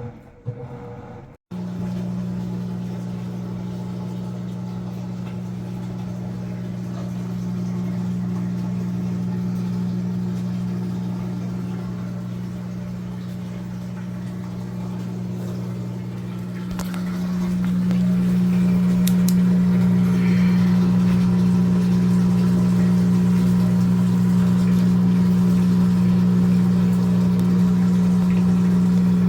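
Whirlpool washing machine running, a steady electric motor hum that grows louder about two-thirds of the way through.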